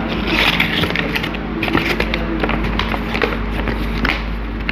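Sheet of paper rustling and crinkling as it is folded and creased by hand close to a clip-on microphone: a run of irregular short crackles and ticks over a steady low hum.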